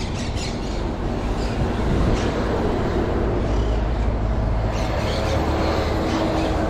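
A motor vehicle's engine running close by, a low rumble that swells about two seconds in, with a steady hum joining about four seconds in, over outdoor street noise.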